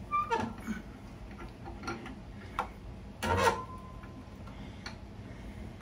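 Scattered metal clicks and clinks from a steel laptop swing-arm mount being handled at its wall plate while a lag bolt is fitted. The loudest is a clink about three seconds in that rings briefly.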